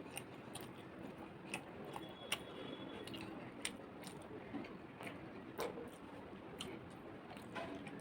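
Close-miked eating sounds: soft wet chewing with sharp mouth clicks and smacks about once a second, over a steady faint hiss.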